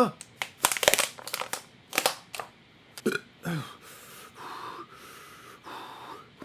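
A man's wordless, exaggerated choking and gasping noises. A quick run of sputtering clicks comes first, then two short falling groans about three seconds in, then breathy exhales.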